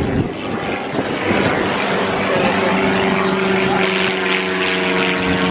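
Loud, steady engine drone: an even hum over a rushing noise that grows hissier in the second half.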